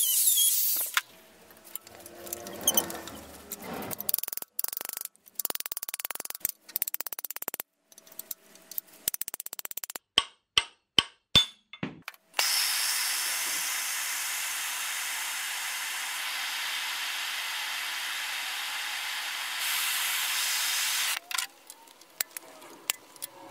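A small grinder with a pink grinding stone grinding down a stuck steel vise-jaw bolt, stopping about a second in. Then light handling knocks, a run of clicks and five sharp ticks, followed by a steady hiss lasting about nine seconds that steps up slightly near its end.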